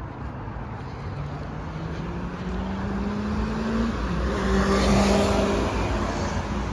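A car driving past. Its engine note climbs steadily as it approaches and drops as it passes about four seconds in, with the tyre noise loudest about a second later.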